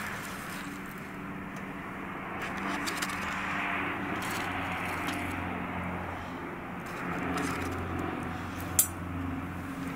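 Metal tongs scraping and clinking on foil-wrapped potatoes as they are pulled from the embers of a wood fire, with a sharp clink near the end, over a steady low hum and hiss.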